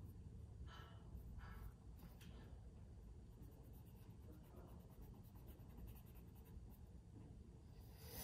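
Faint scratching of a pencil on drawing paper: a few short strokes in the first two seconds, then only faint room tone.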